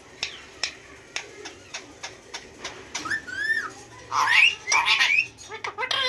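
Indian ringneck parakeets: a run of sharp clicks through the first few seconds, then rising-and-falling whistled calls and, in the second half, loud squawking chatter.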